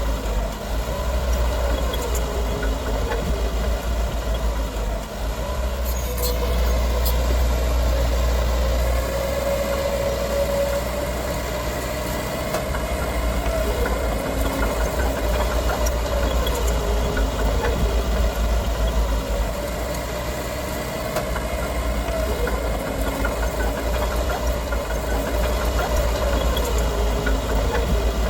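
Diesel engine of heavy earthmoving machinery running under a deep rumble, its pitch slowly rising and falling as it works. There are a few sharp metallic clicks about six seconds in.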